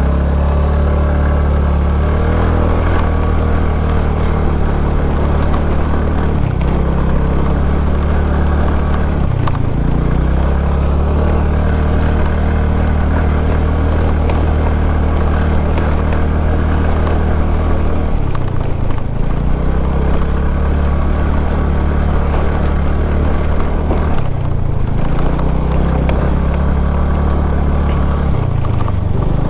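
Small motorbike engine running hard on a rough climb. Its note holds steady, then sags and picks up again about five times as the throttle is eased and reopened.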